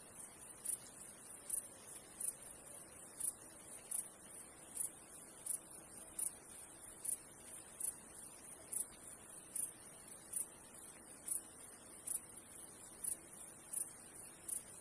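Rapid, very high-pitched chirping, about three chirps a second in an uneven rhythm, over a faint steady hiss.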